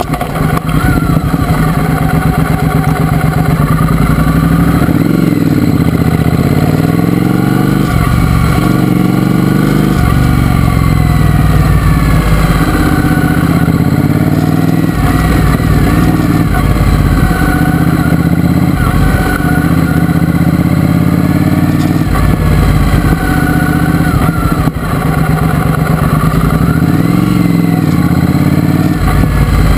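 Triumph Speedmaster's parallel-twin engine running under way, heard from the bike, its note rising and falling several times with throttle and gear changes.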